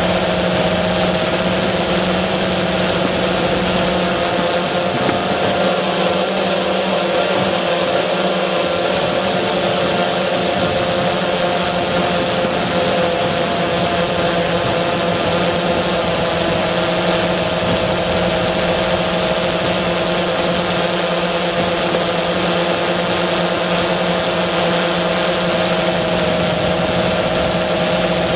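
Remote-controlled helicopter's motors and rotors running steadily, heard from the aircraft itself: a constant hum with a few held tones over a hiss.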